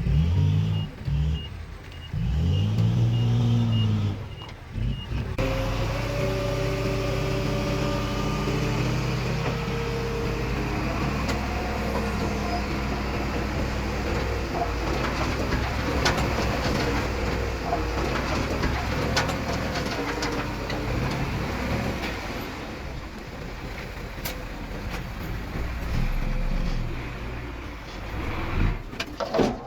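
Heavy diesel machinery at work: an engine revving up and down with a reversing beeper sounding for about the first five seconds. After a sudden change, a diesel engine runs steadily with scattered metallic clanks and knocks.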